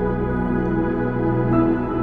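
Soft ambient background music with held chords, the chord changing about one and a half seconds in.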